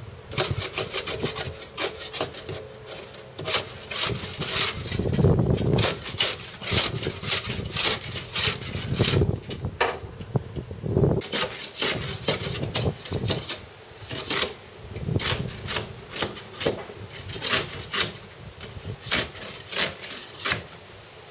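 Hand scraper rasping against the bottom of a hauled-out yacht's hull in repeated strokes, about one to two a second, with a short lull about ten seconds in.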